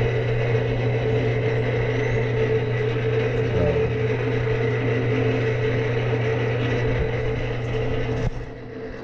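Electric drive of an Oyler rotisserie smoker turning its racks: a steady mechanical hum with a low drone. The drone drops away about eight seconds in.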